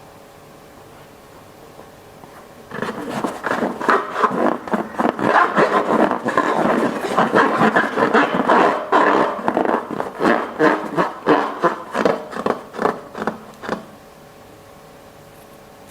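Air escaping from a balloon's neck in a long, rattling, fluttering squeal. It starts about three seconds in, rises and falls in loudness, and stops a couple of seconds before the end.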